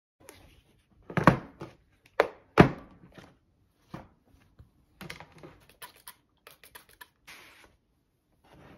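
Orange plastic gouache paint case set down on a wooden tabletop with two heavy knocks, then its lid opened and the paint cups handled: a string of lighter plastic clicks and rattles.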